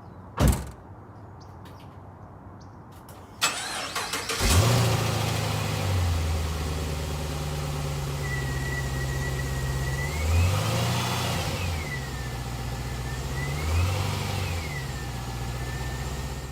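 2009 Pontiac G8 GT's 6.0-litre V8 on its stock exhaust, started cold. There is a thump about half a second in. The starter cranks a few seconds later and the engine catches with a flare of revs, then settles into a steady fast idle. It is blipped briefly twice, each rev rising and falling back to idle.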